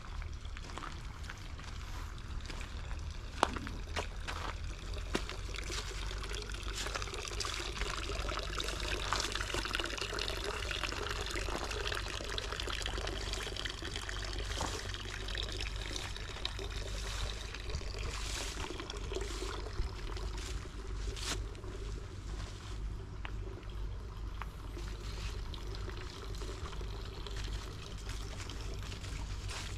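Running water trickling and splashing, loudest in the middle and fading toward the end.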